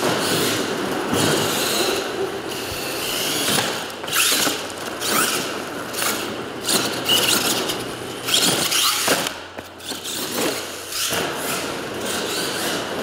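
Radio-controlled scale monster truck's electric motor and drivetrain whining in repeated throttle bursts, the pitch rising and falling, with its tyres churning the dirt; it eases off briefly about three-quarters of the way through.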